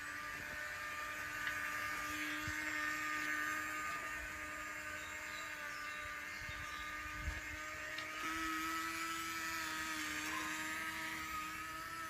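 Small electric motor of a homemade matchbox toy backhoe loader running with a steady whine, stepping slightly higher in pitch about eight seconds in.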